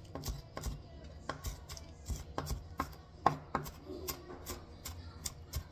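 Kitchen knife chopping scallions on a wooden cutting board: a run of sharp knocks, about three a second and uneven, the loudest a little past three seconds in.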